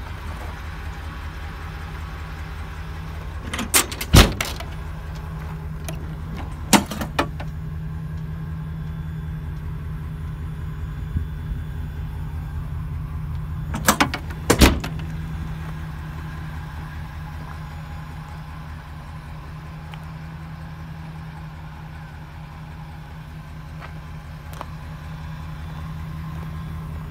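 Ford E-350 truck's engine idling steadily in the background, a low even hum. Over it come a few sharp metal clacks and knocks from the service-body compartment doors and latches, at about 4, 7 and 14 to 15 seconds in.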